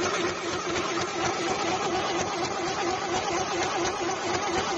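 Portable electric sewing machine running steadily at speed, its motor and needle stitching through heavy fabric.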